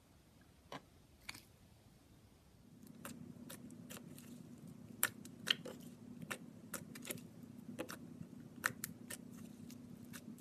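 Slime being squeezed and stretched, giving sharp pops and clicks at irregular intervals, several a second in the busiest stretch. A steady low hum comes in about two and a half seconds in.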